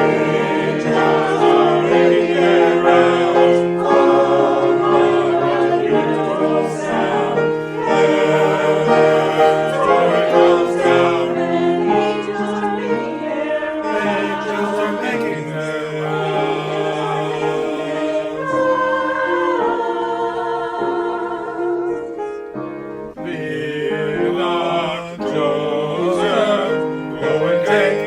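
Choir singing with instrumental accompaniment. The music dips briefly about 22 seconds in, then carries on.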